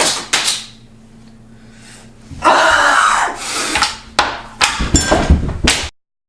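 A series of sharp knocks and bangs with a longer noisy clatter in the middle, ending in sudden dead silence near the end.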